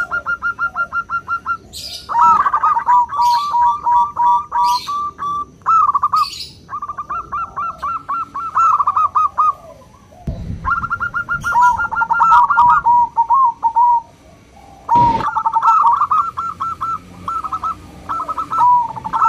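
Zebra doves (perkutut) cooing: phrase after phrase of rapid staccato notes, each ending in a longer drawn-out coo, with short pauses between phrases and at times two voices overlapping. A dull thump about ten seconds in and a sharp knock about fifteen seconds in.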